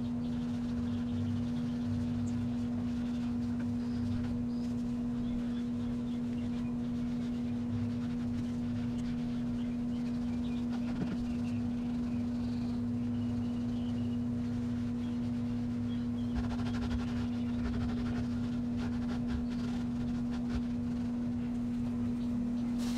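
A steady hum holding one pitch throughout, with faint rubbing from a cleaning pad scrubbing the degreaser-soaked inside walls of an electric smoker, a little more audible about three quarters of the way through.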